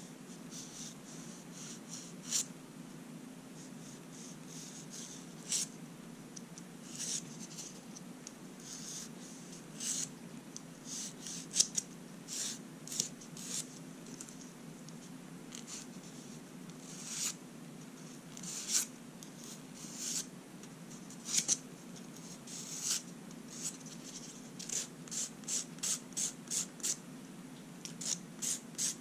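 Short, sharp scratchy strokes of manicure tool work on fingernails, scattered at first and then about two a second for several seconds near the end, over a steady low hum from the faulty microphone.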